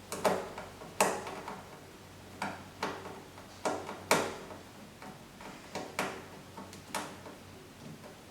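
About a dozen sharp clicks and knocks of hard parts being handled and fitted while assembling a machine, coming at irregular intervals, the loudest about a second in and a little past the middle.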